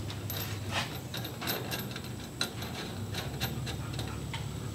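Light irregular clicks and rubbing of metal parts handled by hand: the sway bar end link bolt, cup washers and rubber bushings being seated through the control arm, over a low steady hum.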